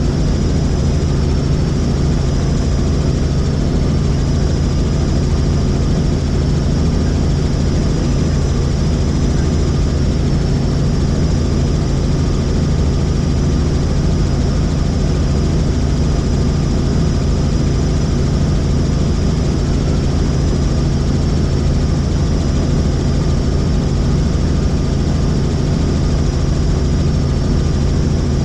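Helicopter in flight, its engine and rotor making a loud, steady drone that does not change.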